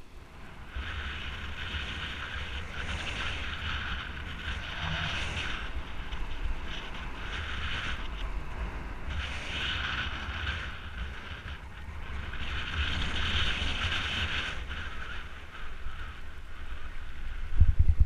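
Wind buffeting the microphone of a camera on a mountain bike rolling downhill, with the rushing hiss of the moving bike swelling and easing. Near the end come a few sharp low knocks as the bike jolts onto a loose gravel track.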